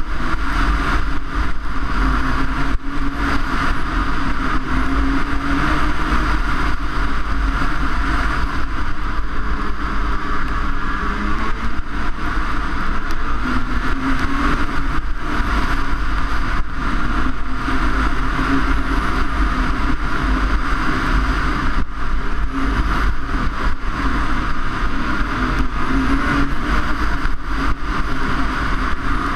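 Snowmobile engine running steadily as the sled travels along a snowy trail, its pitch wavering slightly with the throttle, with wind rushing over the microphone.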